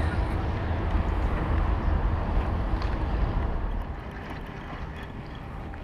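Wind buffeting the camera microphone: a steady low rumble with a hiss over it, which drops to a quieter, even hiss about four seconds in.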